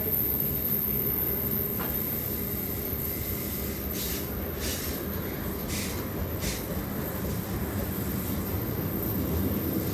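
Freight wagons of an intermodal train rolling past on a curve, with a steady rumble of wheels on rail. Four brief high scraping hisses from the wheels come between about four and six and a half seconds in.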